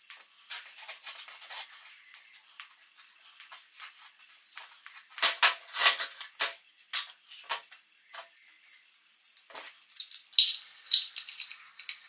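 Handling noise of small metal parts, pliers and wires on a tabletop: light clinks, rattles and scraping. A cluster of sharp clicks comes about halfway through and another near the end.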